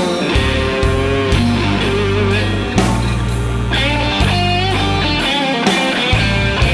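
Rock band playing live, instrumental: an electric guitar lead with wavering, bent notes over electric bass and a steady drum beat.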